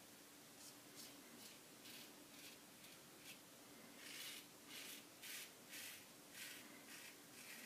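Gillette Tech double-edge safety razor scraping stubble through shaving lather on the cheek: a run of short, faint, scratchy strokes, about two a second, a little louder about halfway through.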